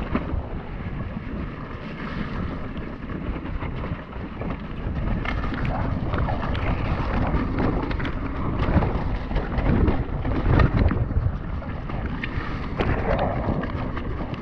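Wind buffeting the action-camera microphone over the clatter of an Orbea Rallon enduro mountain bike riding down a rough trail: tyres on dirt and rocks, with frequent sharp knocks and rattles from the bike. The knocks come thickest about two-thirds of the way through.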